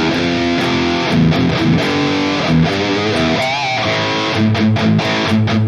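Distorted electric guitar played through a NuX MG-30 modeling unit, on an amp model the player takes for the Marshall DSL, with his own cabinet impulse response. It plays a high-gain riff of chords and single notes, with a held note shaken by vibrato about three and a half seconds in.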